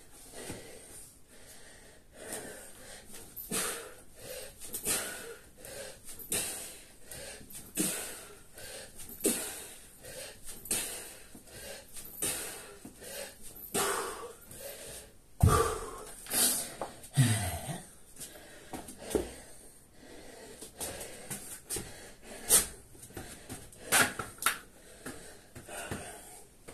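A man's heavy, wheezing breathing during kettlebell swings and burpees: sharp hissing exhales, roughly one every second or so. A heavy thud about halfway through stands out as the loudest sound.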